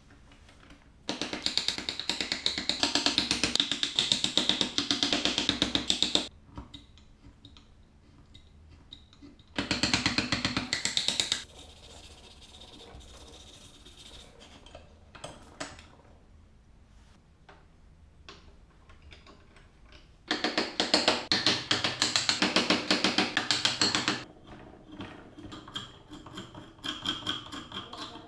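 Hand tool worked rapidly against a small block of wood clamped in a metal bench vise: three bursts of fast rasping strokes, the first about five seconds long, with lighter scrapes and taps between and near the end.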